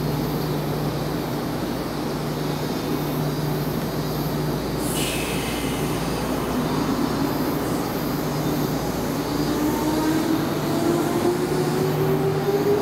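Odakyu 1000 series electric train pulling out of a station: its traction inverter and motors give a whine that climbs steadily in pitch as it accelerates, over a steady electrical hum. There is a short hiss about five seconds in.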